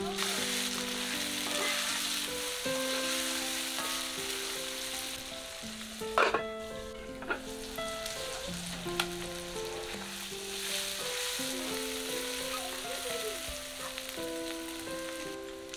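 Eggplant pieces sizzling in hot oil in an iron kadai while a wooden spatula stirs them. There are a few sharp knocks on the pan about six to nine seconds in.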